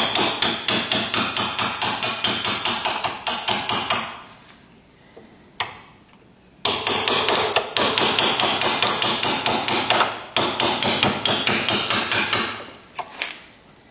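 Rapid hammer blows, about four a second, driving a hand-forged steel chisel into wood. The hammering pauses for about two seconds midway, with a single blow in the gap, then resumes at the same pace.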